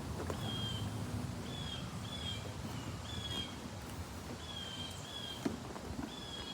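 A bird chirping repeatedly: short high chirps, each dipping slightly at the end, about one or two a second, over a steady low background rumble.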